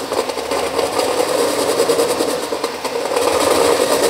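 Cordless drill running at low speed, a unibit step drill cutting a 1-inch hole through sheet metal: a steady motor and cutting sound.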